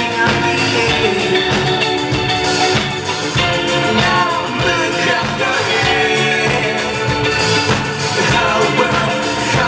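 Live rock band playing: a man sings over electric guitar.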